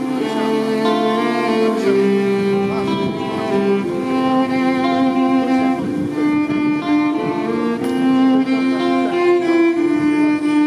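Busker's violin playing a continuous melody of held, sliding notes, with accompaniment played back through a loudspeaker on a stand.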